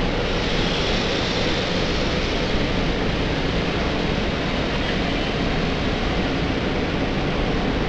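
SEPTA Silverliner IV electric commuter railcars running along the platform at close range: a steady, even rush of wheel and running noise.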